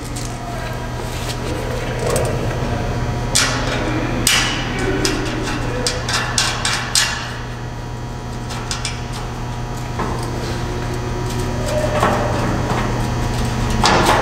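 Metal hardware clinking and clicking as nuts are threaded onto bolts by hand to hold metal mounting brackets on a table leg, in scattered clusters of sharp knocks over a steady low hum.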